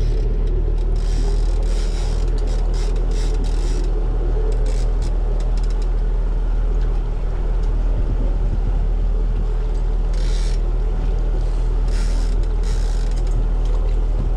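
The fishing boat's engine drones steadily at trolling speed. Short mechanical whirring or hissing sounds come and go several times over it.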